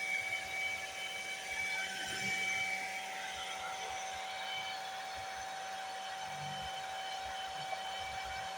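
A small electric motor running steadily with an even whine over a rush of air, like a blower or heat gun.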